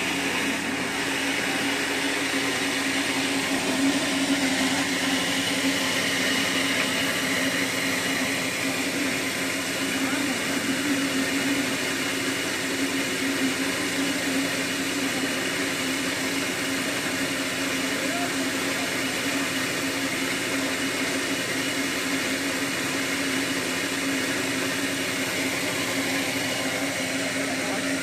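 DongYa Agro combined rice mill (huller and polisher in one) running steadily while milling, a constant hum with a whirring rush as white rice streams out of its chute.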